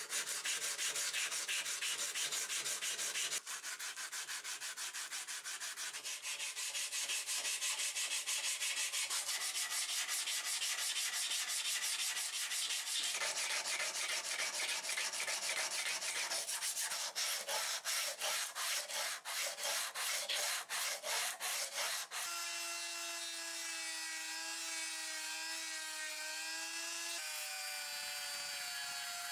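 Sandpaper on a hand sanding block rubbed back and forth over the steel hammer head, the strokes turning quicker and sharper later on. About 22 s in this gives way to the steady whine of a small rotary tool with a sanding drum, which shifts in pitch near the end.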